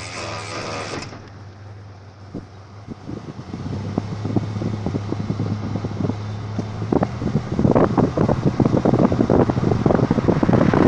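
1992 Ford Explorer's front end making its weird noise as the truck runs: irregular clicking and knocking over a steady low hum, starting a few seconds in and growing louder and denser near the end.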